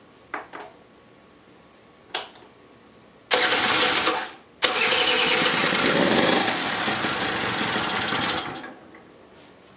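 1986 Honda Spree's 49cc two-stroke single-cylinder engine being started, after a few light clicks. It catches about three seconds in and cuts out within a second, then fires again and runs for about four seconds before dying away.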